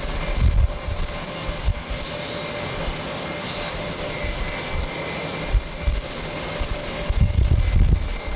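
Distant jet airliner's engines at takeoff thrust, a steady rushing hum with faint whining tones as the aircraft lifts off. Wind gusts rumble on the microphone about half a second in and again near the end.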